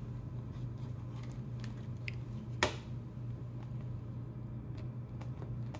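Plastic Blu-ray case being handled: light clicks as its hinged inner disc tray is swung, and one sharp snap about two and a half seconds in.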